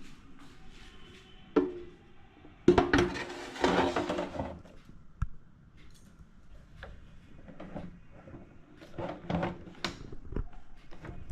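Air fryer basket being handled on the counter: a sharp knock, then a scraping clatter lasting about two seconds, followed by scattered lighter clicks and knocks.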